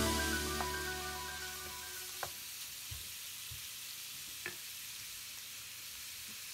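Shrimp, bell peppers and onion sizzling in a hot wok, stirred with a wooden spatula, with a few sharp clicks against the pan. Background music fades out over the first two seconds.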